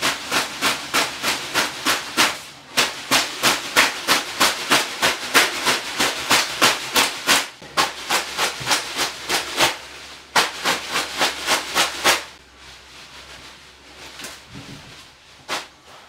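Leafy bath broom (venik) swishing and slapping onto a bather in quick rhythmic strokes, about four a second, with a few short pauses. The strokes stop about three-quarters of the way through, leaving a quiet hiss and one last stroke near the end.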